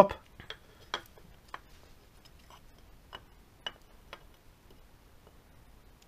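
A few light metal clicks and taps, irregularly spaced and mostly in the first four seconds, as a motorcycle water pump cover is offered up against the engine case and its bolts are fitted by hand.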